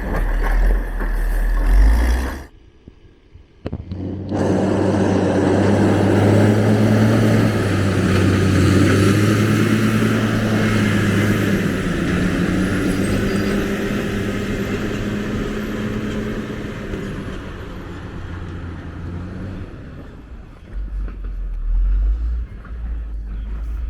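A heavy diesel vehicle's engine running close by in street traffic, a deep steady hum that slowly fades away toward the end. The sound drops out briefly about three seconds in.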